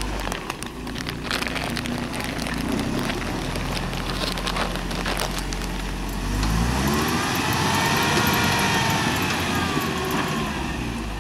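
Engine of a lifted Toyota pickup crawling over rocks, running low and steady at first with a few sharp clicks, then revving up about six seconds in, held high for a few seconds and easing back down.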